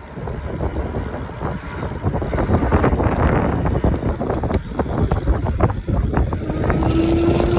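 Loose folding clamp on an XP4 rattling and buzzing while it is ridden, over road rumble and wind on the microphone; a steady hum comes in near the end. The noise comes from the folding clamp needing its screw tightened, not from the motor.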